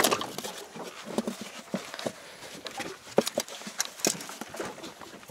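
Irregular taps and knocks, several a second and uneven in strength, as a freshly landed large cod and the fishing gear are handled on a small boat's deck.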